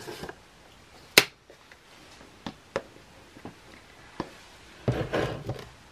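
Kitchen utensil clicks while cornstarch is measured out for a pie filling: one sharp click about a second in, a few lighter taps after it, and a short rustle near the end.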